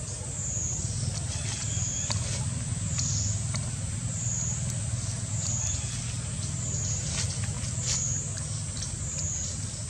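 A steady low motor-like hum with a high whine that dips and rises about once a second above it, and scattered faint clicks.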